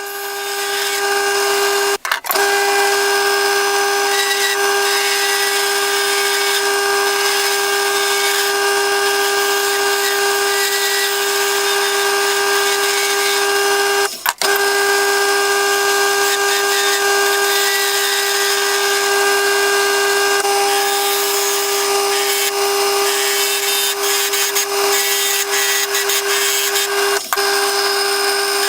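Wood lathe running with a steady whine while a turning tool cuts a wooden spindle, adding a continuous hiss. The sound breaks off sharply for a moment twice.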